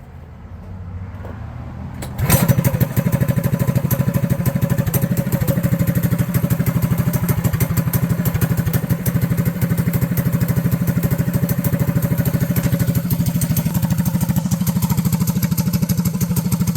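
Predator 212cc single-cylinder engine on a mini bike starting about two seconds in, then running steadily with a fast, even firing beat. It keeps running now that the chafed kill-switch wire has been repaired.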